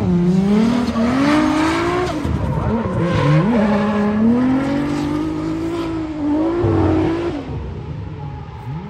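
Drift car's engine revving up and down through a drift, with tyres squealing. The sound drops away about seven and a half seconds in as the car moves off.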